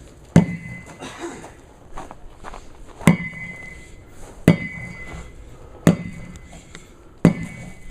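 A sledgehammer striking a stack of tires five times, each blow a heavy thud with a brief metallic ring. The later blows come about every second and a half, with lighter knocks between them as the tires bounce.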